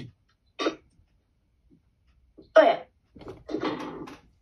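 A person's voice in a few short, indistinct bursts: a brief sound about half a second in, then two longer utterances near the middle and end.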